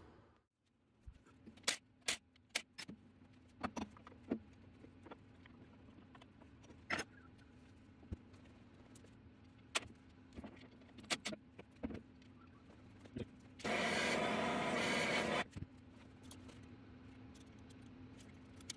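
Tools and metal parts clicking and knocking against a stripped-down small-block Chevy engine block. About two-thirds of the way through, a hand-held power tool runs once for about two seconds, starting and stopping abruptly.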